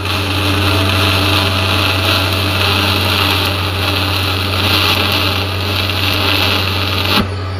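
TIG welding arc from a torch run off a small stick-welder inverter: a steady hiss over a low hum, burning as a bead is laid. The arc is broken about seven seconds in and the hiss stops abruptly, while the low hum carries on.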